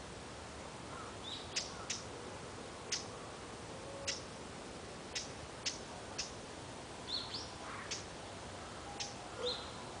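A small Ficedula flycatcher (オジロビタキ) giving short, sharp high call notes at irregular intervals, roughly one a second, with a few softer rising chirps among them, over a faint steady background hiss.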